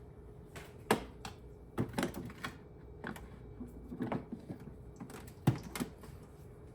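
Scattered light clicks and knocks from handling the tamper and filter holder of a Capresso EC100 espresso machine, coming irregularly and the sharpest about five and a half seconds in.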